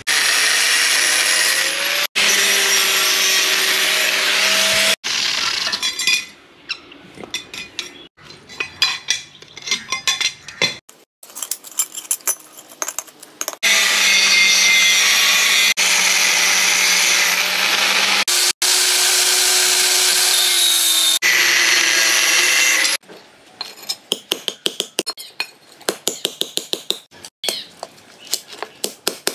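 Angle grinder cutting thin steel sheet: the motor runs with a steady whine in two long cuts, and in shorter broken spurts between them. After that comes a run of quick sharp hammer taps on the metal, faster near the end.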